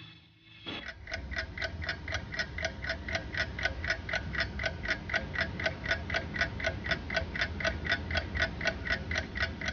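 Rapid, even mechanical-sounding ticking, about four or five ticks a second, over a low steady hum; it starts about half a second in.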